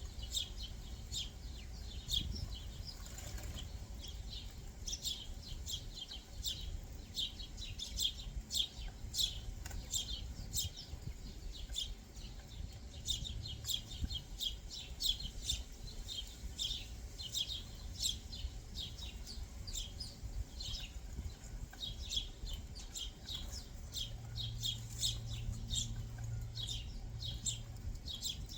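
Backyard songbirds chirping in quick, high, repeated notes, many in close succession. A low hum joins for a few seconds near the end.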